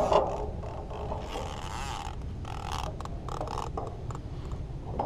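Irregular scraping, rustling and clicking of gear being handled, with a sharp knock right at the start, over a steady low rumble.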